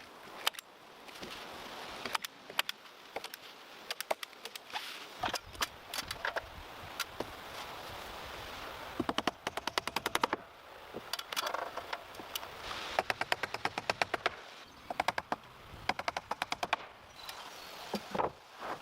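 Repeated rattling runs of rapid sharp clicks or taps, each run about a second long, with single clicks between them and a faint steady hiss underneath.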